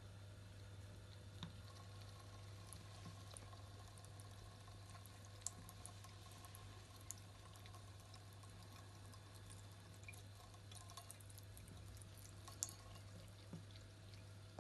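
Faint, thin trickle of water running from a bathroom tap into the sink basin, with a few small clicks as a British Shorthair cat laps from the stream.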